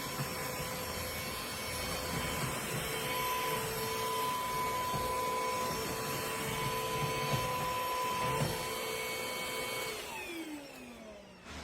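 Trucozie cordless stick vacuum running steadily with a motor whine. About ten seconds in it is switched off, and its pitch falls as the motor spins down.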